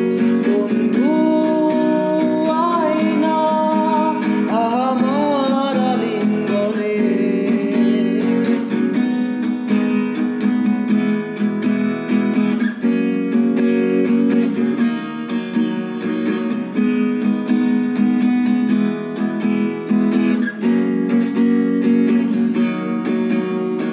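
Instrumental break of a Bengali song: strummed acoustic guitar with a lead melody line that bends in pitch in the first few seconds.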